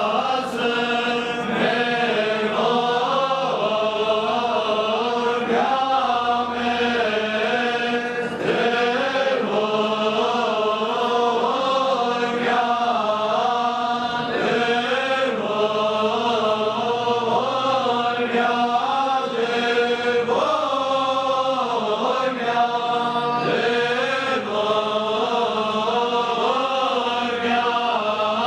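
Male church choir chanting a liturgical hymn, one continuous, unbroken melodic line.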